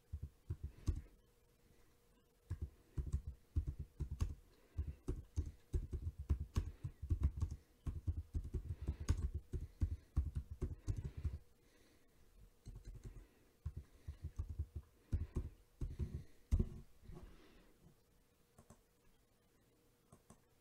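Typing on a computer keyboard: quick runs of keystrokes, dense for about the first dozen seconds and then sparser.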